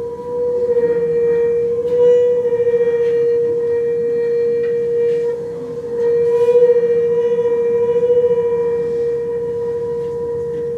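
Double bass bowed on one high, sustained note, wavering slightly in loudness, with a brief dip about six seconds in where the bow changes direction and the note carries on.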